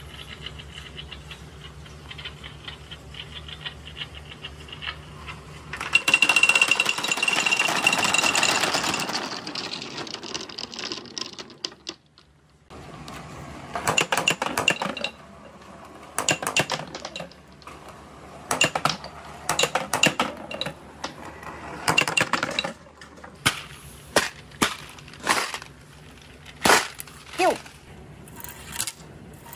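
Marbles rolling through a clear plastic tube of a marble run: a dense, loud rattle that lasts about six seconds, then, after a brief pause, a long series of separate clicks and clinks as marbles knock against each other and the track.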